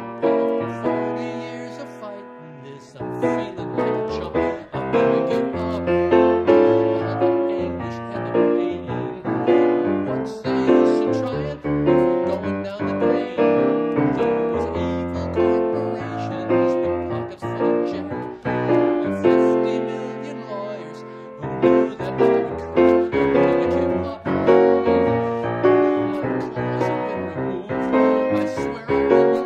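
Grand piano playing a passage of chords and melody, with chords held and left to ring about two seconds in and again around twenty seconds in.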